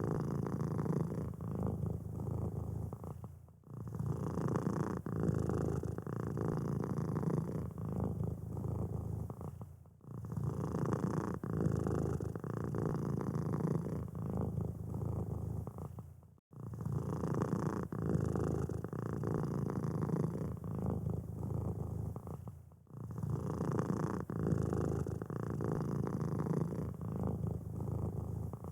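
Domestic cat purring steadily close to the microphone, a continuous low rattle broken by brief pauses about every six seconds.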